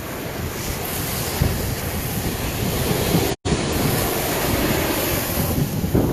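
Ocean surf washing and breaking on a beach, with wind buffeting the microphone. The sound cuts out completely for a split second a little past halfway.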